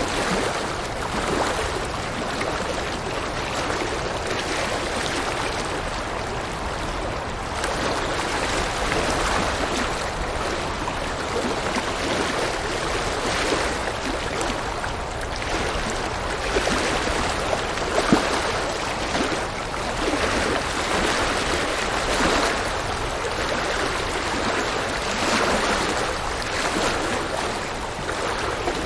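A river flowing steadily over rocks, a continuous rushing of water.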